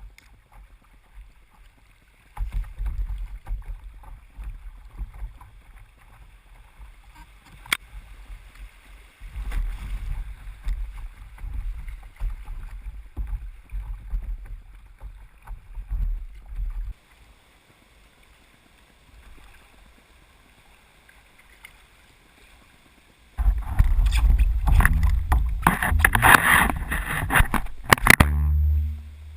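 Kayak on a small river: paddle and hull sounds in the water with low wind rumble on the microphone and scattered knocks, then about five seconds of loud splashing, rushing water near the end.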